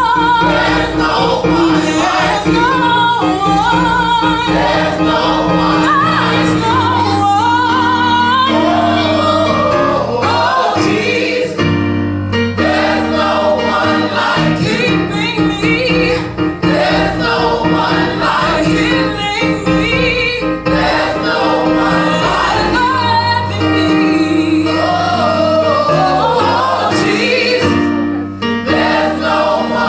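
Gospel vocal group singing, women's and men's voices together, over a steady instrumental bass line.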